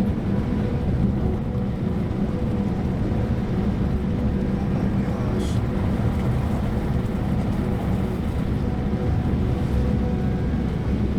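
Steady road and engine noise inside a moving vehicle: a low rumble with a constant hum. There is a brief high hiss about halfway through.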